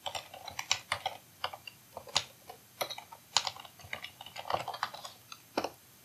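Typing on a computer keyboard: a string of irregular keystroke clicks, some in quick runs and others spaced apart.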